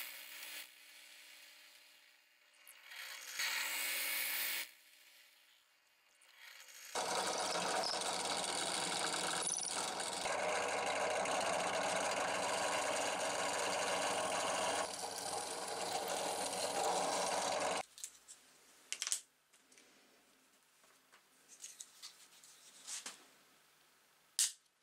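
Benchtop drill press boring into a wooden tool handle: a short run at the start, another a few seconds in, then a long steady run of about ten seconds. After it stops, light clicks of a small plastic package being handled, with one sharp click near the end.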